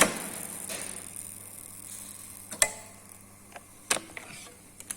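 Small edge-banding machine running quietly with a faint steady hum, with four sharp clicks or knocks: a loud one at the start, then fainter ones a little past halfway, toward the end, and just before the end.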